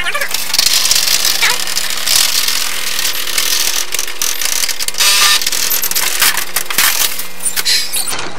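Typewriter typing fast: a dense, rapid run of key strikes over a steady low hum.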